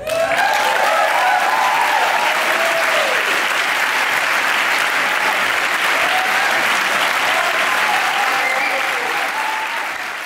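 Audience applause breaking out suddenly and holding steady, with cheering voices calling out over the clapping early on and again later, then easing off slightly at the end.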